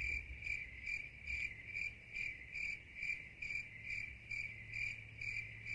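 Crickets chirping in an even, repeating pulse a little over twice a second, the stock comedy sound effect for an awkward silence.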